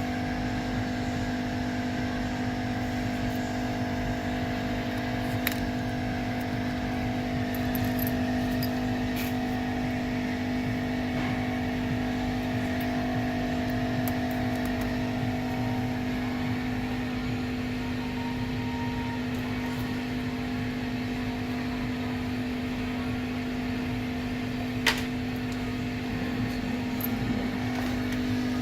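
Steady mechanical hum made of several constant tones, with a couple of small sharp clicks, one about five seconds in and a louder one about twenty-five seconds in.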